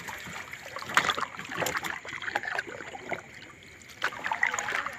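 Wet gill net hauled by hand over the side of a small boat, water dripping and trickling off the mesh with scattered knocks and rustles of net and sardines. The loudest knock comes about a second in, with a busier stretch near the end.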